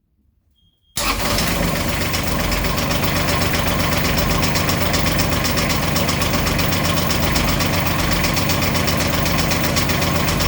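Beta 25 hp three-cylinder marine diesel starting abruptly about a second in, then idling steadily with an even rapid pulse. The engine has a knock that its owner is trying to track down.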